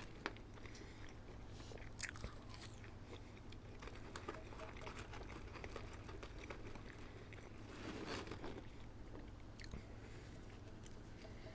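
A person chewing and biting food close to the microphone, with scattered crisp crunches and mouth clicks. A cluster of crunches comes about 2 s in, and a denser stretch of chewing comes about 8 s in.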